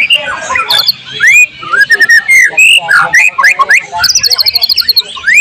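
White-rumped shama (murai batu) singing a fast, varied song of short rising and falling whistles and chirps, with a quick rattling run of repeated high notes about four seconds in. The song includes notes mimicked from other birds.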